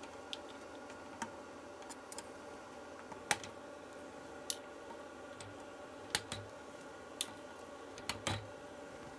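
Sparse light clicks and taps of a circuit board and small hand tools being handled on a workbench, a sharper one about three seconds in and a quick pair near the end, over a faint steady hum.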